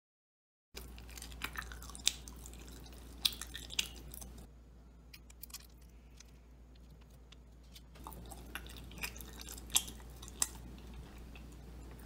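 Someone chewing songpyeon, the chewy Korean rice cake, close to the microphone: scattered soft, sticky mouth clicks over a faint steady low hum.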